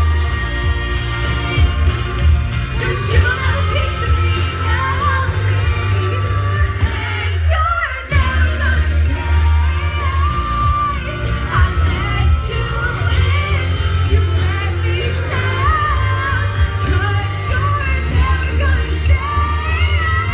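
Live pop performance: female vocal group singing over a loud, bass-heavy backing track with a steady beat, heard from the audience. The bass and beat drop out briefly about eight seconds in, then come back in.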